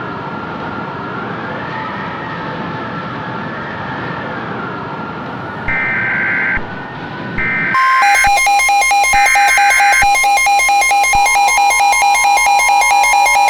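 A siren wailing slowly up and down over noise. About six seconds in come three short, screechy bursts of EAS SAME data-header tones. Then, about eight seconds in, a loud, harsh, rapidly pulsing alert tone starts and carries on, joined by a steady two-note attention tone.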